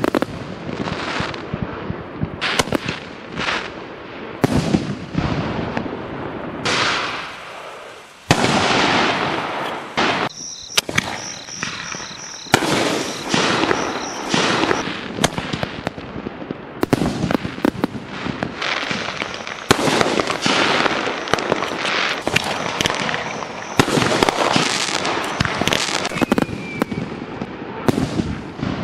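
4-inch canister shells firing and bursting in the air, one loud bang after another, with a brief lull about eight seconds in.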